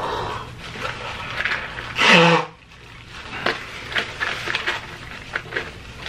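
A man crying into a paper napkin: one loud sob with a falling voice about two seconds in, amid quieter sniffs and small rustles.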